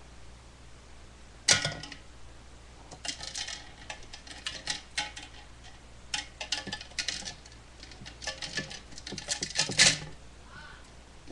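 Small hard objects being handled: a sharp knock, then a few seconds of irregular clicking and clattering, with the loudest clack just before the end.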